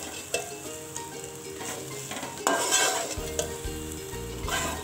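Egg fried rice with vegetables being stirred and tossed with a spatula in a steel pan, sizzling, with repeated scrapes and clicks of the utensil against the metal.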